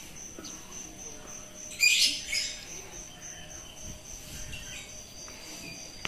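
Birds chirping, with the loudest burst of calls about two seconds in, over a steady high-pitched pulsing trill.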